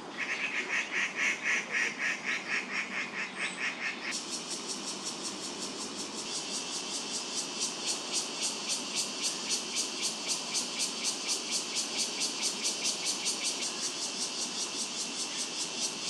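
Cicadas chirring in an even pulsing rhythm of about four to five pulses a second; about four seconds in, the chorus switches abruptly to a higher-pitched pulsing.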